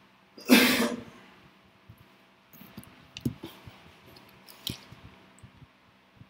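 A man clearing his throat once, about half a second in, followed by a few faint clicks and taps.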